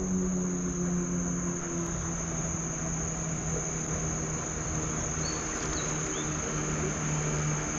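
Steady, high-pitched insect drone from the riverbank, with a low, steady motor hum underneath.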